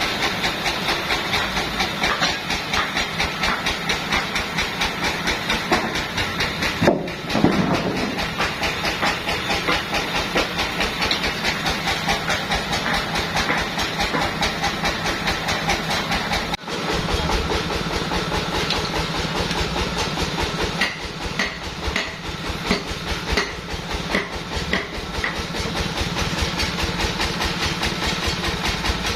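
Sawmill machinery running: a steady engine-driven hiss and rumble with a fast, even pulse, changing abruptly about seven and again about seventeen seconds in.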